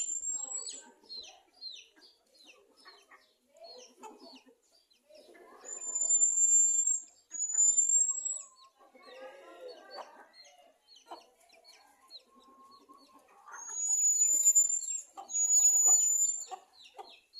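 Chickens clucking, with a steady run of short, high peeps several times a second. Over them come long, high, thin whistled notes, each about a second, in pairs: once at the start, twice in the middle and twice near the end. These are the loudest sounds.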